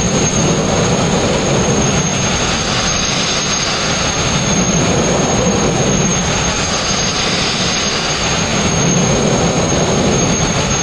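Sandblasting nozzle running continuously, compressed air and abrasive grit blasting rust and old paint off a steel narrowboat hull: a loud, steady rushing hiss with a thin high whistle held over it.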